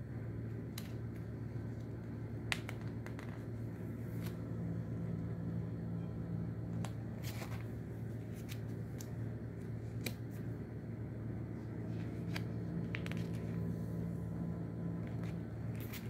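Stamp album pages being handled and turned by hand, giving scattered sharp clicks and paper rustles, over a steady low hum.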